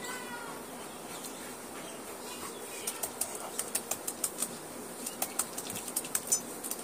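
Hands rubbing and patting a wet Labrador's coat during a bath: a run of quick, sharp wet slaps and rubs that starts about three seconds in and grows busier toward the end.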